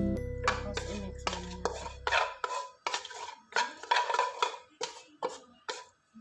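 A metal utensil clattering and scraping against a pan in quick repeated strokes, about three a second, as food is stirred or tossed. Background music fades out about two seconds in.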